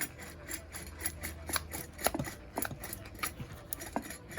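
Worn front wheel bearing of a 2006 Toyota Corolla being turned, giving a rough, irregular run of clicks and scrapes, several a second. It is all notchy, the sign of a failed bearing.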